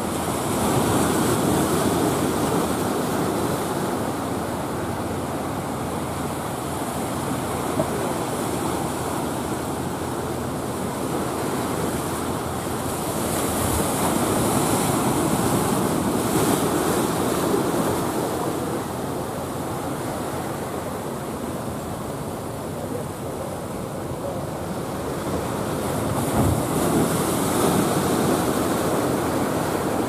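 Ocean surf breaking and washing, swelling louder and easing off a few times, with wind buffeting the microphone.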